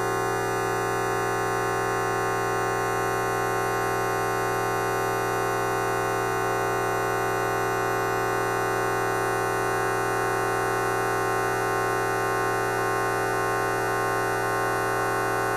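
A fart sound effect time-stretched to an hour, heard as a steady, unchanging buzzing drone of many held tones.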